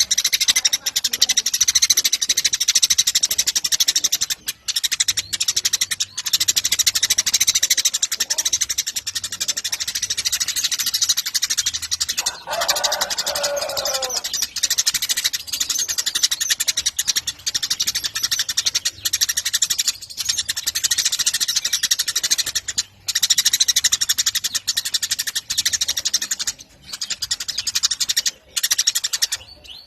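Eurasian tree sparrows chirping in a dense, continuous chatter, with a few brief breaks. About twelve seconds in, a lower call falls in pitch for a second or so.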